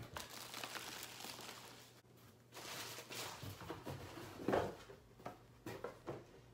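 Rustling and handling of packaging as a small boxed item is dug out of a cardboard box, with a few light knocks in the second half.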